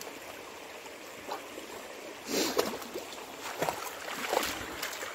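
Shallow stony river running steadily, with a dog's legs splashing through the water as it wades. The louder splashes come about two and a half seconds in and again near the end.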